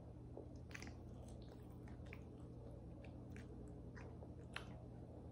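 Faint close-up chewing of a fried chicken slider: scattered soft mouth clicks, with one sharper click near the end.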